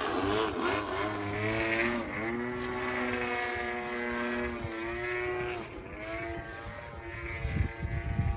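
Radio-controlled aerobatic airplane's two-stroke gas engine running in flight. Its pitch swoops up and down in the first two seconds, holds a steady note for a few seconds, then falls away about five and a half seconds in as the plane flies off.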